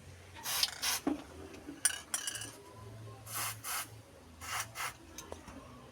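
Graphite spray aerosol sprayed onto a car door's hinges in short hissing squirts, mostly in pairs about a second apart, lubricating hinges that had been squeaking.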